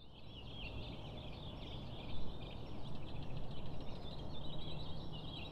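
Several songbirds chirping and singing at once, a continuous busy chatter of quick high notes, over a steady low rumble of outdoor background noise.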